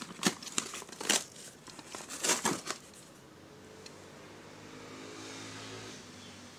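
Corrugated cardboard shipping box being torn open and crinkled by hand, with several sharp rips over the first three seconds, the loudest about two and a half seconds in. After that a steady low hum takes over, swelling slightly before it fades.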